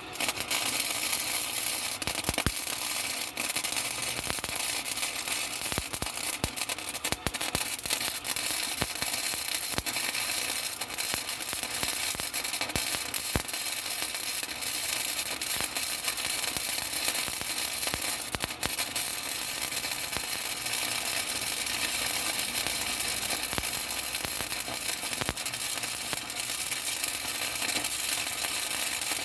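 Electric arc welder laying a weld on steel: a steady, loud crackle with many sharp pops scattered through it.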